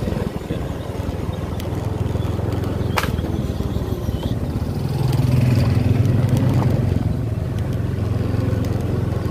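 Motorcycle engine running steadily while riding, a low hum that grows louder about five seconds in. There is a single sharp click about three seconds in.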